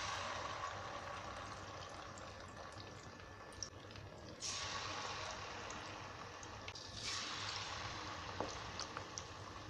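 Marinated whole quail going into hot oil for deep-frying: the oil sizzles up suddenly three times as each bird goes in, and each surge slowly dies down.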